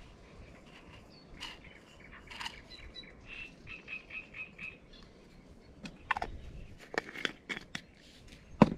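Plastic bait jars being handled on a table: light rustling and clicks of the jars and lids, with a cluster of sharp clicks in the second half and the loudest click near the end. Around the middle, a short run of about six quick, evenly spaced calls from an animal.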